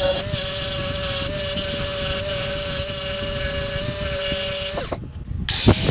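Handheld rotary tool with a sanding drum whining at a steady high speed as it sands rust from inside the eye of a steel hammer head. It cuts off just under five seconds in, and after a brief gap a different power tool starts up near the end.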